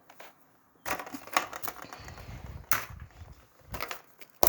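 Irregular clicking and rustling from small candy packets and toys being handled, starting about a second in, with one sharp click near the end.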